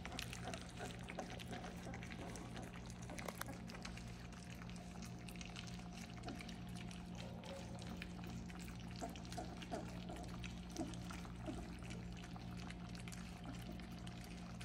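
A litter of 3.5-week-old golden retriever puppies lapping and slurping soft wet food from a shallow steel pan, a dense run of small wet clicks and smacks, over a low steady hum.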